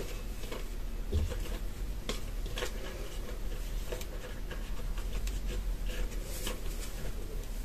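Faint rustling and light scattered clicks of hands gathering and tying up long hair, over a low steady room hum.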